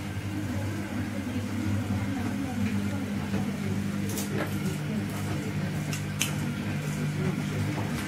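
Motorised spinning cat toy, a toy bird circling on an arm, running with a steady hum. A few sharp taps come about halfway through, as the cat swats at the toy.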